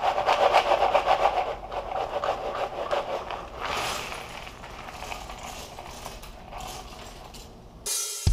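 Pieces of a 1,000-piece cardboard jigsaw puzzle pouring out of their box onto a wooden tabletop: a dense clatter of many small pieces sliding and tumbling. It is loudest in the first couple of seconds, surges again about four seconds in, then thins out and fades near the end.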